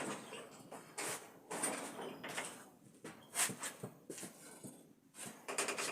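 Irregular scraping, rustling and knocking of things being handled and moved, in short bursts of a second or less.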